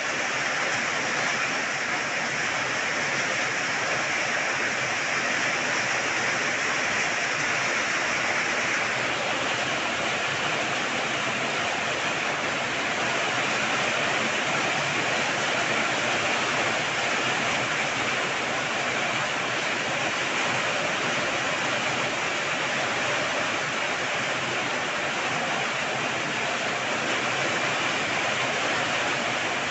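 Heavy rain pouring down, a steady, even hiss of falling water.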